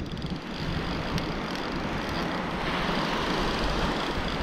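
Wind buffeting the microphone over the steady wash of ocean surf on the beach, with the surf swelling louder in the second half as a wave runs in.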